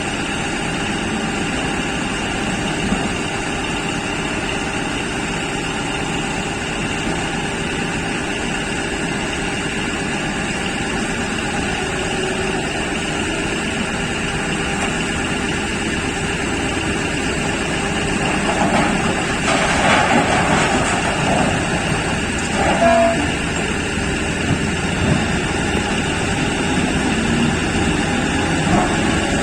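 Electric P&H mining shovel and Belaz haul truck running steadily while loading ore, a constant mechanical drone with steady whining tones. About two-thirds of the way through, a louder rushing noise lasts a couple of seconds, followed by a short knock.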